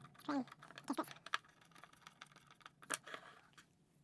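A few light, irregular clicks and taps of small 3D-printed plastic parts and screws being handled during assembly.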